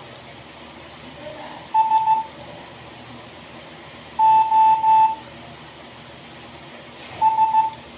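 Morse code SOS distress signal sounded as a steady beep tone: three short beeps, three long beeps, then three short beeps.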